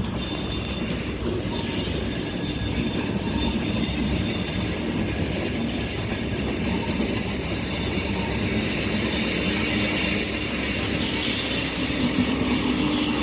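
InterCity 125 (HST) train pulling out past the platform: diesel power cars and coaches rolling by with a steady low rumble and a high-pitched whine, getting gradually louder toward the end as the rear power car approaches.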